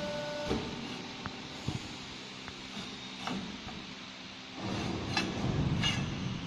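Square tube bending machine running with a steady motor hum, with clicks and metal knocks as the bent steel tube is handled at the machine. About four and a half seconds in, a louder, rougher mechanical noise sets in.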